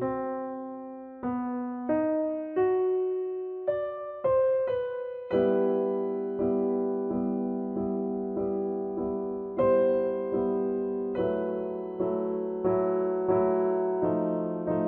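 Soft background piano music: single notes one after another, then fuller chords from about five seconds in, each note fading after it is struck.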